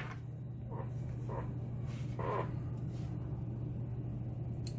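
Tweezers handling the small brass pins and springs of a disassembled pin-tumbler lock: a few faint soft scrapes, then one sharp tiny metallic click near the end, over a steady low electrical hum.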